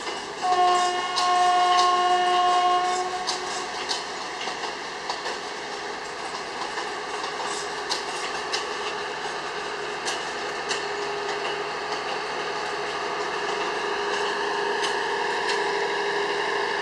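A Thai express passenger train's horn sounds once, a single pitched blast of about two and a half seconds starting half a second in. The train then rolls on in reverse, its wheels clicking over rail joints.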